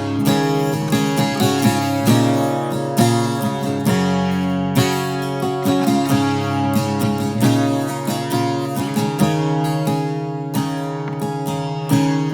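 Acoustic guitar strummed on its own, a steady run of chords between sung verses.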